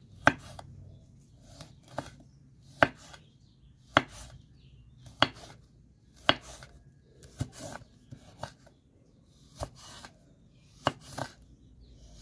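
Chef's knife dicing serrano chiles on a wooden cutting board: sharp knocks of the blade against the board, about one a second.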